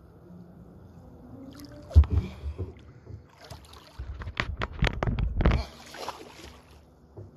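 Kayak paddling on calm water: paddle strokes with splashes and drips, a single thump about two seconds in, and a run of splashing and dripping between about four and six seconds.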